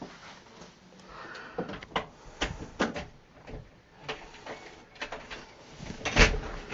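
Door hardware clicking and knocking as a front door is unlocked and opened: a string of short clicks, with a heavier thump about six seconds in.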